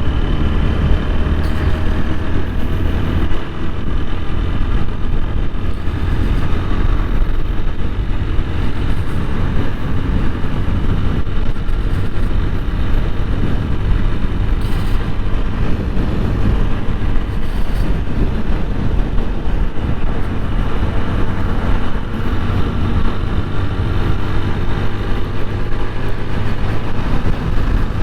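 TVS Apache 160 4V single-cylinder motorcycle engine running steadily while the bike is ridden. The rider says the engine is making a tappet noise, because the mechanic left the tappets loosely set.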